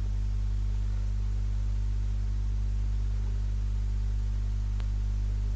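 Steady low electrical mains hum with its overtones under light hiss, and a faint click near the end.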